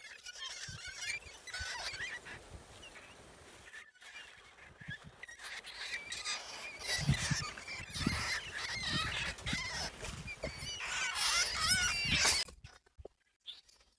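Trapped field rats squealing, many short shrill wavering squeals that grow thicker in the second half, over rattling and knocking of the wire-mesh traps being handled. It all stops abruptly near the end.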